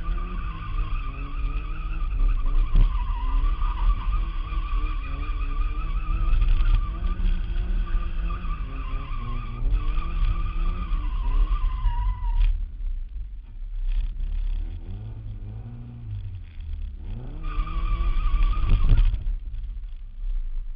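Lada car driven hard, its engine running loud under the tyres' wavering high squeal. The squeal stops about two-thirds of the way through, then returns briefly near the end as the engine revs up again.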